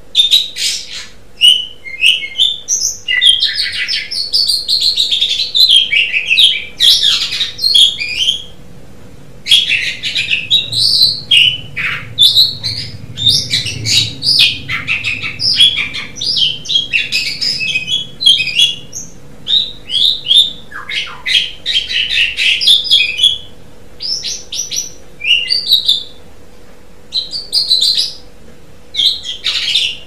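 Asian pied starling (jalak suren) singing a long, varied song of rapid chattering, squeaky and whistled phrases in bursts, with short pauses between them.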